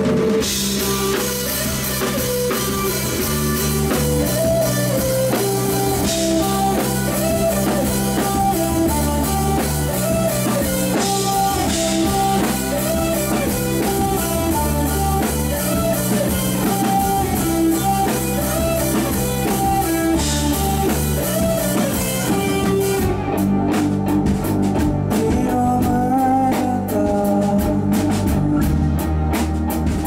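Live rock band playing an instrumental passage: electric guitars over bass and a full drum kit, a lead guitar carrying a melody with repeated string bends. About two-thirds of the way through the drums switch to a choppier cymbal pattern.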